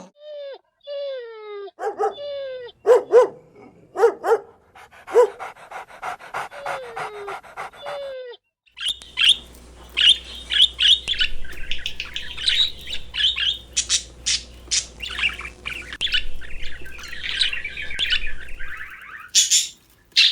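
An animal giving a series of short calls, each falling in pitch. Then, after a brief gap, a dense run of high bird chirps lasts about ten seconds.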